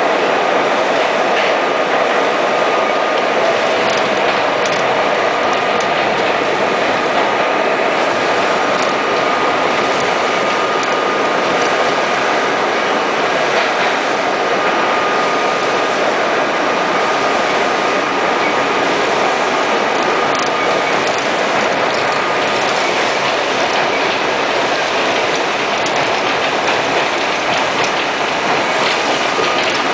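Budd R32 subway train running at speed through a tunnel: a steady, loud rumble of steel wheels on rail, with faint clicks over the rail joints. A thin, steady high tone runs over it, fades about two-thirds of the way in, and returns near the end.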